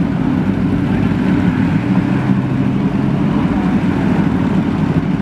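1991 Yamaha FZR1000's inline-four engine running steadily while the motorcycle is ridden.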